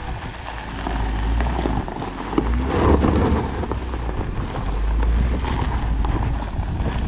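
Wind buffeting the microphone: a low, gusting rumble that swells and fades, strongest about three seconds in.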